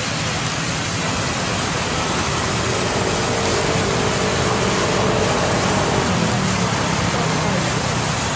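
Vertical band sawmill running steadily, its blade cutting lengthwise through a timber board as it is fed. It makes a loud, even noise.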